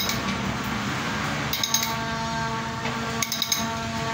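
Cone-shaped pipe reamer turned by hand in the end of a metal pipe clamped in a bench vise: metal scraping and clinking, with a cluster of sharp clicks about every second and a half as the handle is worked.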